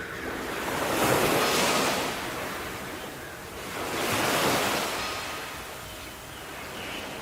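Sea waves surging and washing in, two swells of surf about three seconds apart, the first about a second in and the second around four seconds in.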